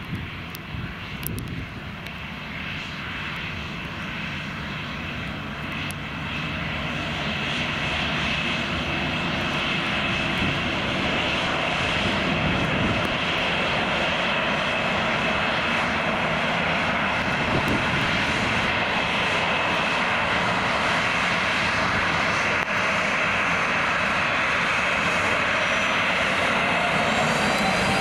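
Ryanair Boeing 737-800's CFM56 jet engines running at taxi power as the airliner rolls past, a steady whining rush with a low rumble underneath. It grows louder over the first ten seconds or so, then holds steady.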